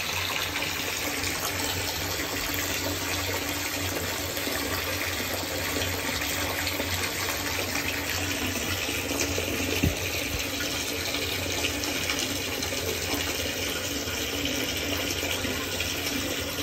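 Bath tap running steadily into a filling bathtub, with a single short knock about ten seconds in.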